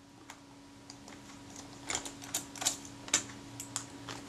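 Irregular small metallic clicks and taps from a small screwdriver and the metal parts of a Kodak Retina IIC camera being handled, a few sharper ones about two to three seconds in, over a faint steady hum.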